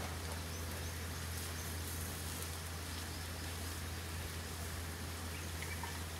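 Steady low hum under an even hiss of background noise, with a faint short chirp near the end.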